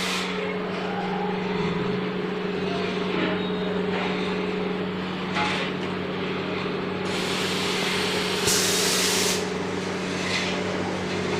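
Steam-heated mava-making machinery running: a steady motor hum with bursts of hissing, the loudest about seven to nine seconds in.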